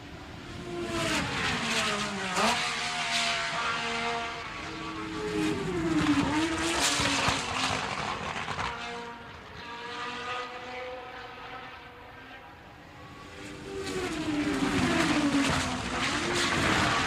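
Formula 1 cars racing past at high revs, the engine note sliding down and back up in pitch as each goes by. Three loud pass-bys start about a second, five seconds and fourteen seconds in, with a fainter engine sound between them.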